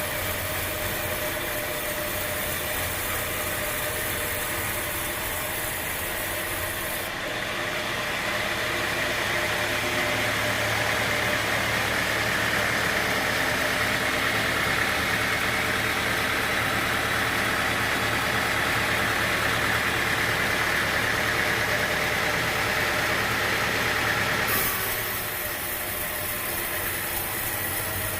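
Sawmill machinery running with a steady engine-like hum. It changes suddenly about seven seconds in to a louder stretch with a high, hissing whine, then drops back to the steadier hum near the end.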